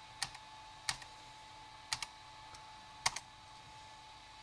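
Computer keyboard keys pressed one at a time: four separate keystroke clicks spread over about three seconds.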